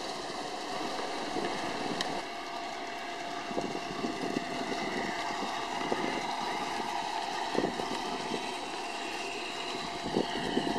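Large-scale garden-railway model diesel train running past, with a steady motor hum and wheels clicking irregularly over the rail joints.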